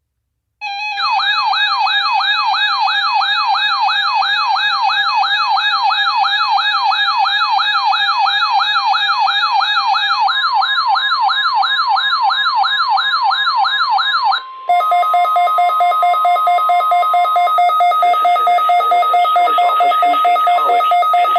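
Electronic emergency alert tones from a weather radio test. First a loud warbling tone sweeps up and down about three times a second, joined by a steady tone about ten seconds in. About fourteen seconds in it switches to a steady, pulsing two-note alarm tone, with a voice starting faintly beneath it near the end.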